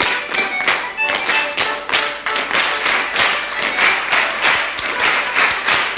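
Clogs striking the floor in a fast, even rhythm of stepping. Fiddle music sounds in the first second and then fades out.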